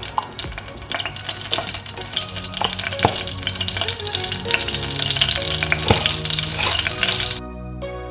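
Hot coconut oil sizzling with scattered crackles in a stainless steel saucepan; about halfway through, mustard seeds go into the oil for tempering and the sizzle gets much louder and brighter, then cuts off abruptly near the end. Soft background music underneath.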